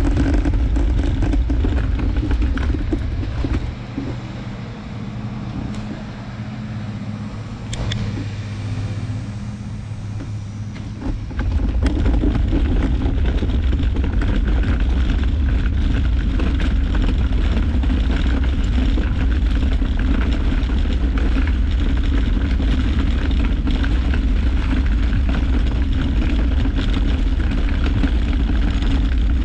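Steady rumble of a collapsible wagon's wheels rolling over cracked asphalt, heard close up from a camera mounted on the wagon. It eases off for several seconds about four seconds in, then comes back just as loud.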